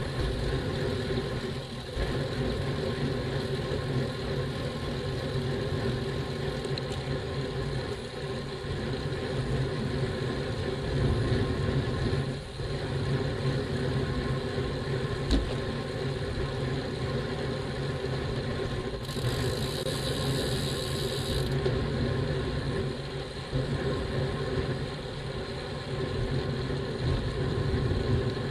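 Steady wind and road noise from a bicycle rolling at about 24 km/h, heard through a bike-mounted camera's microphone, with a brief high hiss lasting about two seconds, two-thirds of the way through.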